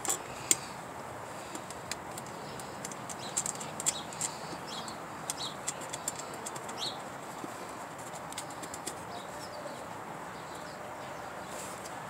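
Scattered light clicks and taps from a nut being fitted by hand onto the mounting screw under a moped's chrome seat rack, over a steady outdoor hiss with a few short bird chirps.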